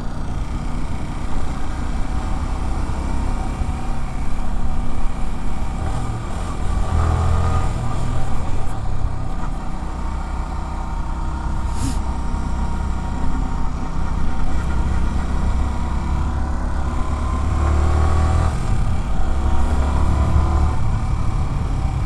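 Yamaha R15's 155 cc single-cylinder engine running under way, with wind and road noise; its pitch rises under acceleration a couple of times.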